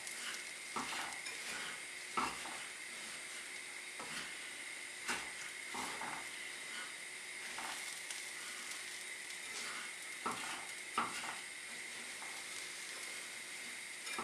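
Spoons stirring and scraping buttery digestive-biscuit crumbs and golden syrup in a metal saucepan, with irregular knocks and scrapes against the pan. Under it, a faint steady sizzle from the pan on the heat.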